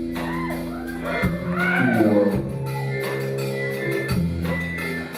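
Live band music in an instrumental passage with no singing: held low notes under swooping, wavering tones for the first couple of seconds.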